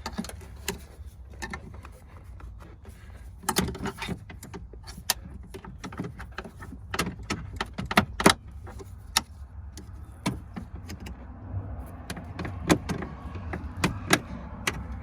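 A pry bar working at parts of a pickup truck's interior: irregular sharp clicks, taps and metallic clinks, a few much louder than the rest, over a steady low hum.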